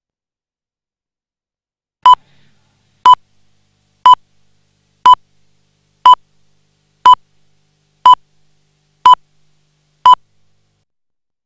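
Nine short, identical electronic beeps of one pitch, evenly spaced one a second, starting about two seconds in after dead silence.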